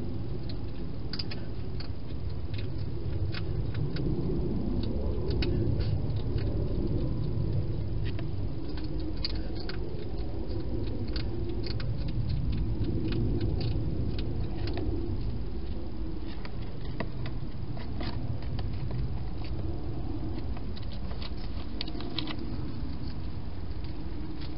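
Wild hedgehog crunching dry food from a bowl inside a plastic feeding box: irregular sharp clicks and crunches, over a steady low background rumble.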